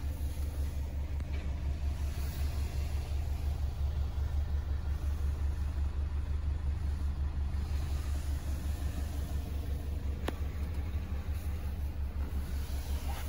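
Range Rover Velar's 2.0-litre four-cylinder diesel idling, a steady low pulsing rumble heard from inside the cabin. A single click about ten seconds in.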